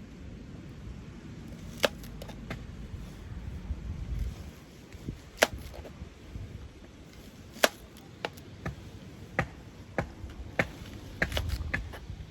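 Firewood making irregular sharp cracks and knocks: three loud ones spread through the first two-thirds and a cluster of smaller ones near the end.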